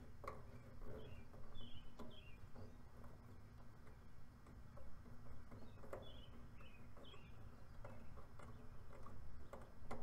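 Faint clicks and light metal knocks from a valve core removal tool being worked on an air conditioner's service port while the Schrader valve core is pulled. Short high bird chirps come and go over a low steady hum.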